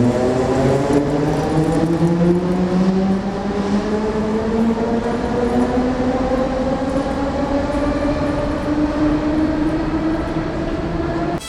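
Electric train accelerating: the traction motors' whine rises steadily in pitch over the rumble of the wheels on the rails, then cuts off suddenly near the end.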